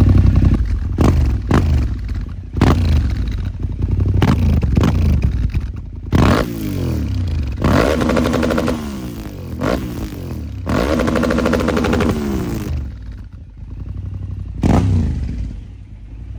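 2024 Yamaha Ténéré 700's 689 cc parallel-twin engine running through a newly fitted Yoshimura full exhaust system, idling between a series of sharp throttle blips. Two revs, about eight and eleven seconds in, are held for a second or two, and each rev falls back in pitch to idle.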